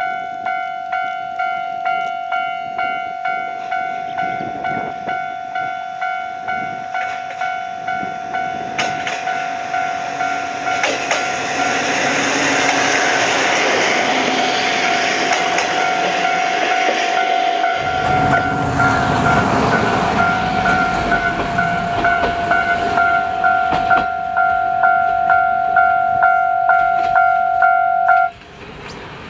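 Japanese level-crossing warning bell ringing in a steady two-tone pulse, a little under two strokes a second, while a two-car train of vintage KiHa 52 diesel railcars passes close by with its diesel engines rumbling and wheels clattering over the rail joints. The bell cuts off near the end as the train clears the crossing.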